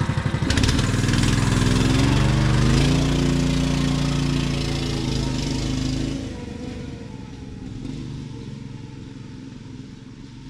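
212cc single-cylinder mini bike engine idling, then revved up about half a second in as the bike moves off. The engine holds a high note for several seconds, drops off about six seconds in, and grows fainter as the bike rides away.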